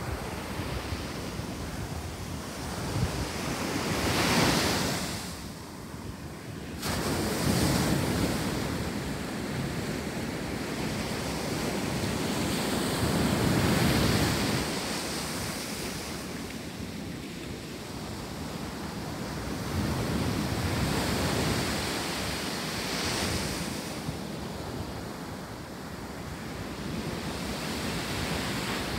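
Ocean surf breaking and washing up the beach in slow swells every few seconds, with wind buffeting the microphone.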